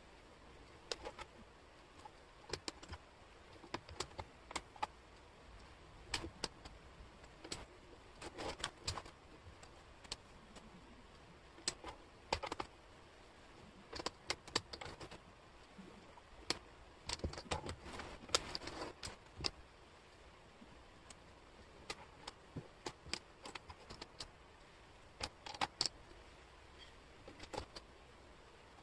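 Wooden jigsaw puzzle pieces clicking and clattering as hands sort and slide them across a table, in irregular clusters of light taps.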